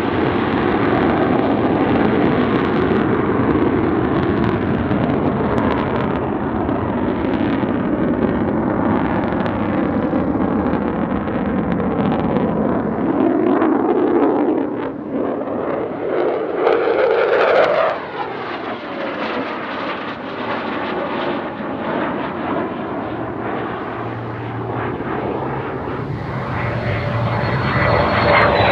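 Jet noise from a Lockheed Martin F-35A's single Pratt & Whitney F135 afterburning turbofan in flight: a steady, dense rumble. About halfway through the jet passes, and the sound swells with sweeping tones that then drop in pitch. A high whine comes in near the end.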